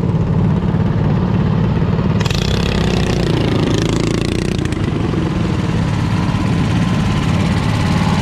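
Off-road lawn tractor engine running steadily and loudly close by. About two seconds in, a rushing noise joins it for a couple of seconds.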